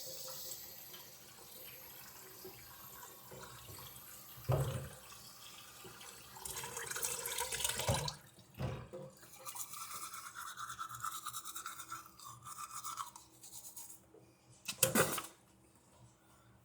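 Toothbrush scrubbing against teeth in on-and-off stretches, with a couple of short knocks about four and a half seconds in and near the end.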